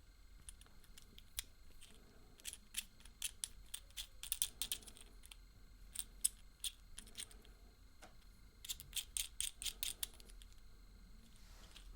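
Small hard plastic pieces of a Kinder Surprise capsule and toy clicking and tapping as they are handled, in two runs of quick sharp clicks.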